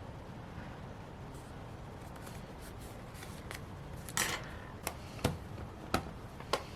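Hands working with paper and stationery on a desk: faint rustling, then a short scraping rustle about four seconds in, followed by four sharp clicks or taps about half a second apart.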